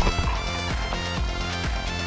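Background music: instrumental track with guitar and a steady beat.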